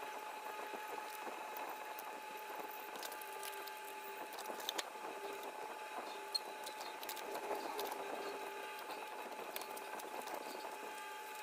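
Faint scratching, crackling and small clicks of foam board being cut with a utility knife and handled, over a faint steady hum.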